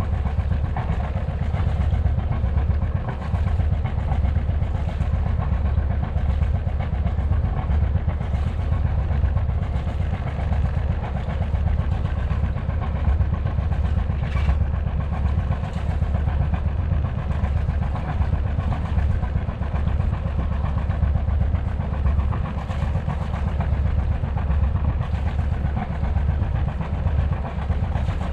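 A sailboat's inboard diesel engine running steadily at low revs with a low, even throb.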